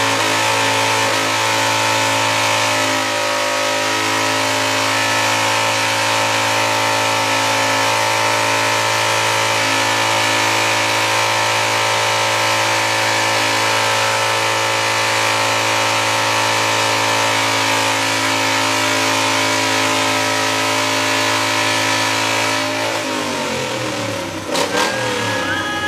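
A John Deere lawn tractor's engine running at a steady high speed. About 23 seconds in, its pitch falls as it slows down.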